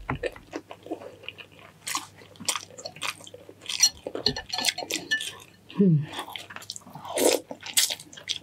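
A person eating close to the microphone: wet chewing and smacking, in irregular clicks with small crunches, and a brief low hum about six seconds in.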